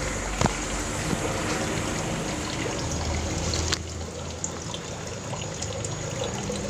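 Steady trickle of running water, with a few light clicks; a sharp click about four seconds in, after which the trickle is a little quieter.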